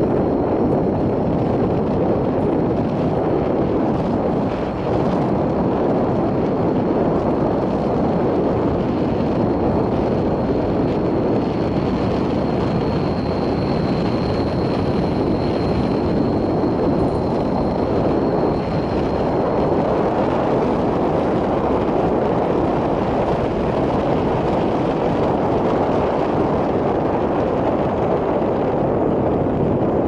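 Steady rush of wind and road noise from a car driving along at speed, with wind buffeting the microphone. A faint high steady tone sounds through the first two-thirds and then fades out.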